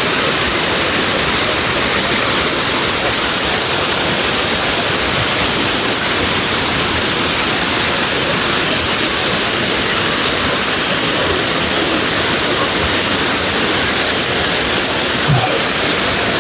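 Rushing water of a waterfall and river rapids, a loud steady roar echoing in an enclosed gorge.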